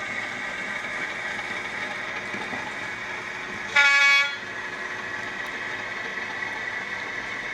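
A single short train-horn toot, about half a second long, a little past the middle, over a steady mechanical hum.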